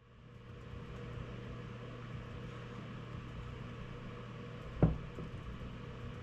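A steady low machine hum with a hiss, fading in at the start, with a single sharp knock about five seconds in.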